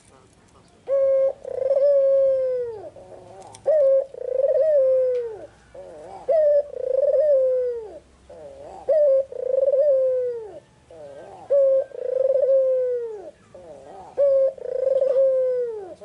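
White red-eyed Barbary dove (puter putih) cooing over and over: about six two-part coos, each a short note followed by a longer one that drops in pitch at the end, roughly one every two and a half seconds.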